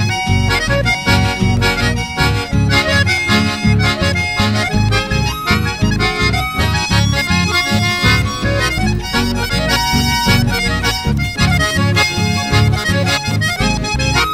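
Instrumental chamamé dance music led by accordion over a steady pulsing bass beat.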